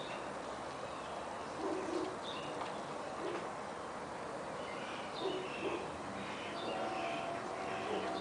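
Birds calling: low cooing notes a few times, with scattered higher chirps. A faint steady hum comes in near the end.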